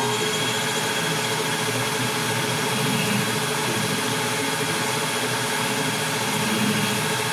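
Metal lathe running steadily at speed, its spindle and large four-jaw chuck turning. It gives an even machine hum with a few steady held tones.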